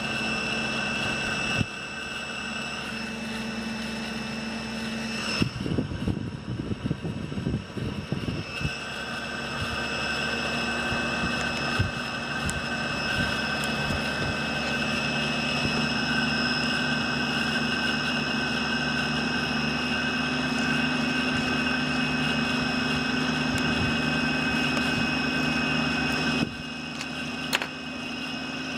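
Electric cooling fan driven by a homemade 555-timer PWM controller, running steadily with a high whine over a low hum. Its level dips for a couple of seconds near the end.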